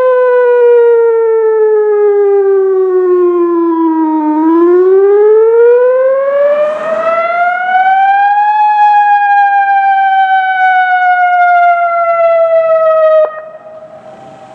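ATI HPSS-32 electronic outdoor warning siren sounding its wail tone during a siren test. The pitch glides slowly down, rises over about four seconds, then falls slowly again, and the siren cuts off suddenly near the end.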